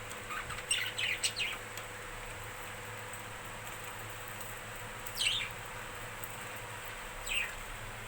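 Budgerigars chirping: a quick run of short chirps in the first two seconds, then two single chirps, each sliding down in pitch, about five and seven seconds in.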